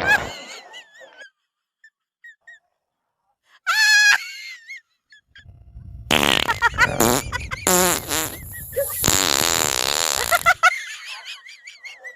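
Loud fart sounds: a short one about four seconds in, then a long run of several drawn-out farts with wobbling pitch, ending about ten seconds in.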